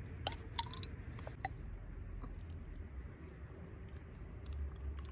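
A person chewing a fresh strawberry, with a few wet mouth clicks in the first second and a half, over a steady low hum.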